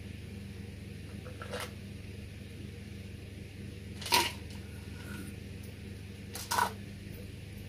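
Steady low hum, with three short noises of a plastic drink bottle being handled and drunk from, the loudest about four seconds in.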